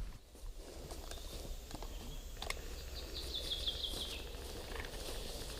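A small bird singing a short, quick trill that falls slightly in pitch about three seconds in, over faint outdoor background noise with a few light clicks.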